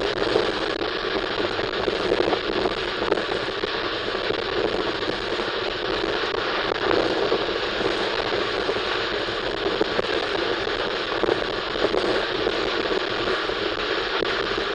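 Steady crackling, rattling running noise of a moving train, with no single loud knock standing out.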